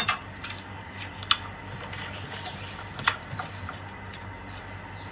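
A few sharp clicks and light clinks from a spoon and a lye water bottle being handled over a mixing bowl: a quick double click at the start, then single clicks about a second in and about three seconds in.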